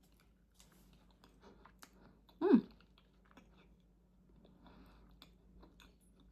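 A person chewing a gummy vitamin, with faint small mouth clicks. About two and a half seconds in comes a short hum of the voice with a falling pitch.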